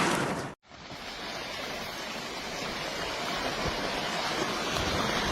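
A loud rushing noise cuts off abruptly just over half a second in. After a short gap comes the steady rushing of a landslide, like a raging river, slowly growing louder.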